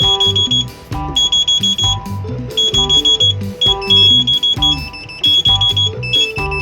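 Background music with a steady beat, bass notes under short, bright repeating synth notes.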